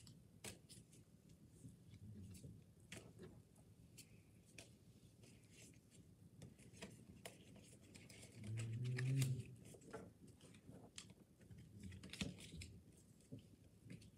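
Pokémon trading cards being handled: quick soft clicks and rustles as cards are flicked, shuffled and laid down one after another. A brief low voice-like murmur comes about two-thirds of the way through.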